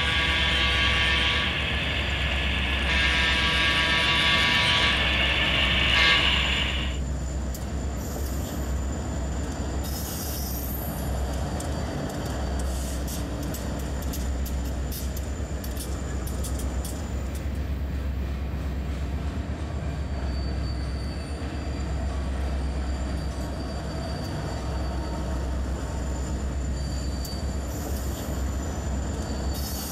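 Horn of a sound-equipped HO scale model of EMD F-7 diesel locomotives, sounding in two long blasts over the first seven seconds. After that comes a steady low diesel rumble with scattered light clicks.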